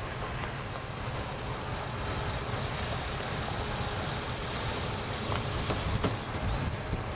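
Taxi under way: steady engine and road noise heard from inside the cabin.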